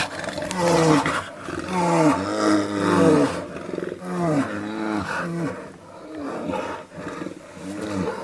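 An animal roaring in short repeated calls, about two a second in loose groups, each call bending up and then down in pitch.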